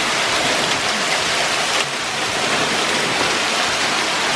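Heavy rain mixed with small hailstones pouring down steadily, a dense, even hiss of drops and pellets striking surfaces.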